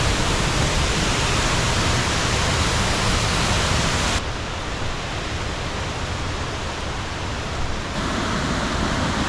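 Steady rush of falling water from a waterfall cascade. The sound turns abruptly duller about four seconds in and brighter again about eight seconds in.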